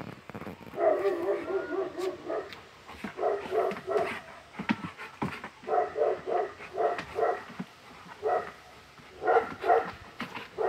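A dog barking repeatedly: a quick run of barks about a second in, then barks in twos and threes.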